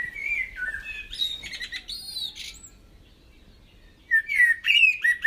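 Songbird singing: a varied warbling song of gliding, whistled notes, pausing for about a second midway and then starting up again.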